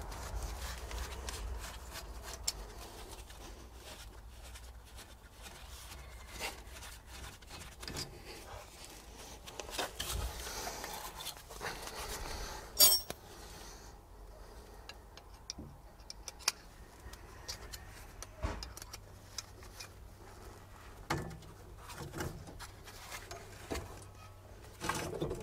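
Scattered light metallic clicks and clinks of hand tools and the front brake caliper being handled as the caliper is unbolted and worked off the brake disc, with one sharper clank about 13 seconds in.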